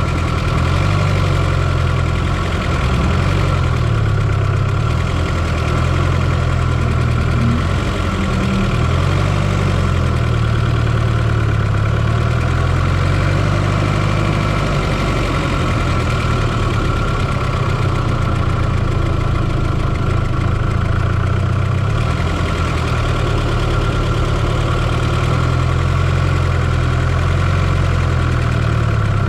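1995 Fiat Coupe 2.0 16V turbo engine idling steadily, picked up close in the engine bay, with a steady high whine above the low engine note.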